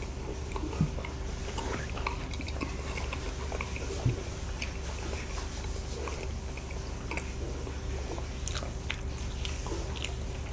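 Close-miked chewing of soft soboro bread with the mouth closed: faint wet mouth clicks throughout, two slightly louder ones about one and four seconds in, over a steady low hum.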